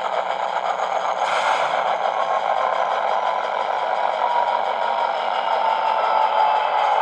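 ESU LokSound 5 decoder's recorded EMD SD70ACU diesel engine sound running steadily, played through a small model-train speaker, with a short hiss about a second in.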